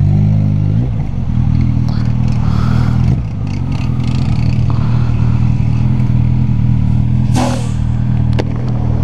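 Motorcycle engine and exhaust running under way, a steady low drone with a brief change in pitch about a second in and a short drop in level about three seconds in.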